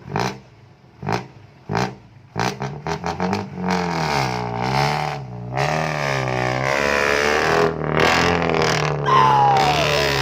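Vehicle engine with a loud exhaust blipped in several short revs, then held at high revs that swing up and down for several seconds. A falling whine comes in near the end.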